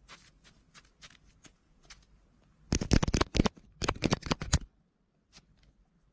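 Crunching of wet, granular snow under a gentoo penguin's feet right beside the microphone: scattered soft steps at first, then two quick bursts of crisp crackling as the penguin reaches the camera.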